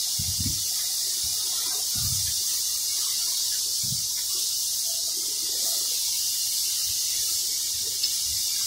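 Steady high hiss with a few soft, low knocks.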